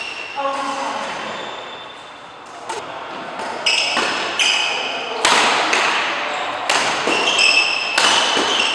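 Badminton racket strikes on a shuttlecock during a doubles rally: sharp cracks at irregular intervals, coming more often in the second half and echoing in the hall. Between the strikes come short high squeaks of shoes on the court mat.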